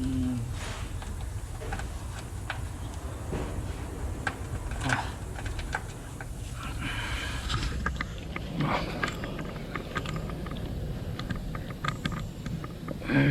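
Scattered light metallic clicks and taps of hand tools and a bolt being fitted during transmission installation work, over a low steady hum.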